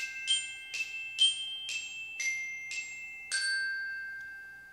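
A short glockenspiel-like jingle: single struck, bell-like notes at about two a second, ending on a longer note about three seconds in that rings out and fades.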